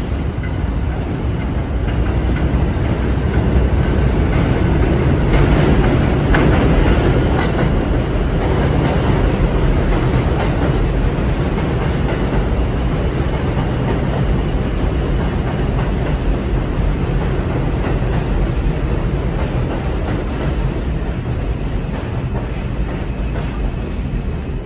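New York City Subway R142-family (4) train pulling into an elevated station on steel track. It builds to its loudest a few seconds in, with wheels clattering over the rail joints, then keeps running alongside the platform and grows gradually quieter as it slows.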